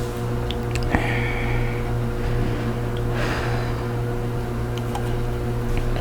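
A person drinking sparkling water: a click about a second in, then a brief fizzy hiss, and a short breathy gulp or exhale about three seconds in. A steady low hum runs underneath.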